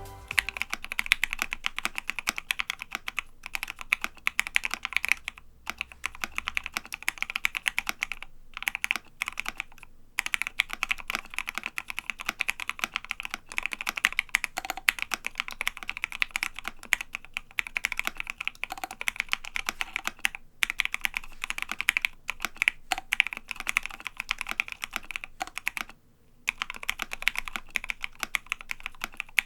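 Custom Savage65 mechanical keyboard with lubed Gateron Ink Black linear switches, an FR4 plate and MT3 keycaps being typed on fast and continuously, with a few brief pauses.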